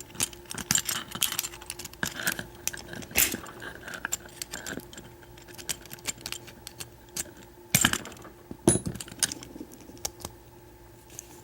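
Small metal parts of a Master Lock 141DLF padlock's lock cylinder clicking and rattling as it is worked apart with tools, in irregular light clicks with a few sharper ones about three seconds and eight seconds in.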